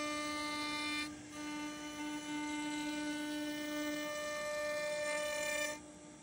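CNC router spindle spinning a pointed roundover bit, a steady whine that dips briefly about a second in and stops shortly before the end.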